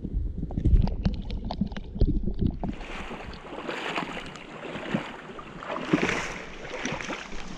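Muffled underwater rumbling and knocks, then, about three seconds in, the sound of shallow river water rushing and splashing around a metal detector shaft as the camera comes up out of the water.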